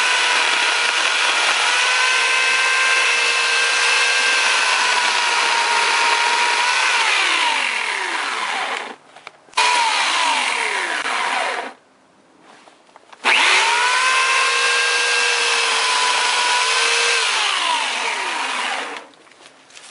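Chicago Electric 14-inch electric chainsaw with a 1¾ hp motor, running at a steady high whine while cutting thick shrub branches. Its pitch sags as the chain bites into the wood. The motor cuts out and starts again twice around the middle, then stops near the end.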